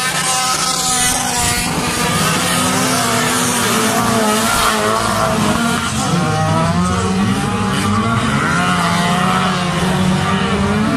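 Several stock car engines revving hard together as the cars race around a dirt track, their notes rising and falling over one another.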